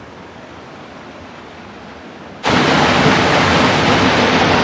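Mountain stream rushing and splashing down a small rocky cascade, faint and distant at first, then loud and close from about halfway through.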